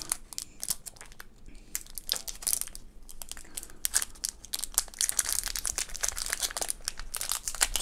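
Clear plastic protective film crinkling and crackling as it is peeled off an earbud charging case: a run of small irregular crackles, sparse at first and denser in the second half.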